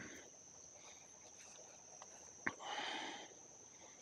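Quiet outdoor background with a steady high-pitched insect trill. About two and a half seconds in there is a sharp click followed by a short rustle.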